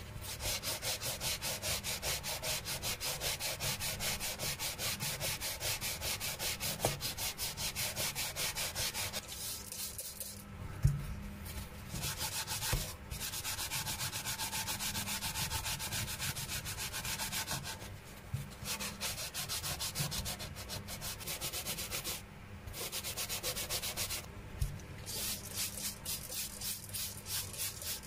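Sanding block rubbed back and forth over a bare metal model car body in quick strokes, about four to five a second, in several runs broken by short pauses. A few light knocks, the loudest about a third of the way in.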